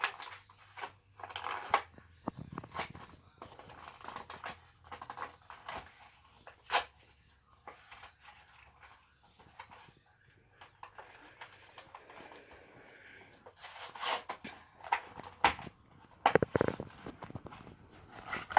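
A die-cast toy car's cardboard-and-plastic blister card being opened by hand: scattered crinkles, clicks and taps, with a sharper click about seven seconds in and a busier stretch of handling near the end.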